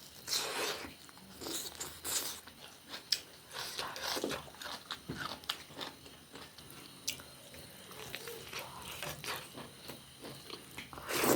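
Close-miked biting and chewing of crunchy fried food, in irregular crunches and wet mouth clicks.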